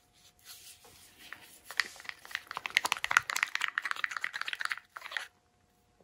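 Green plastic stir stick working thick acrylic paint in a plastic cup: a rapid run of small clicks and scratchy crackling that cuts off suddenly about five seconds in.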